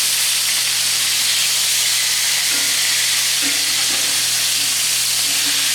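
Flour-dredged ground bison burgers frying in hot grease in a skillet, a steady sizzle just after they have been flipped to brown the second side.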